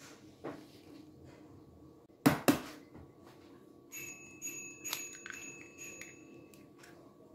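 A hen's egg knocked twice, sharp and loud, against the rim of a glass mixing bowl to crack it. From about four seconds in come light clicks with a high, bell-like ringing that stops sharply after a couple of seconds, while the egg is pulled open over the flour.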